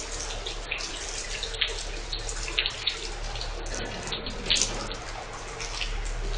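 Water churned by the electric narrowboat's propeller inside a canal tunnel: a steady wash with irregular short splashy spatters several times, over a low steady hum.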